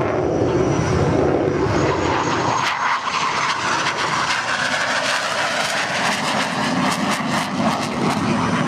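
Engine noise of a Vietnam-era military jet (F-4 Phantom or TA-4 Skyhawk) flying during an airshow demonstration. It starts with a deep rumble, and after about three seconds the low end falls away, leaving a crackling hiss.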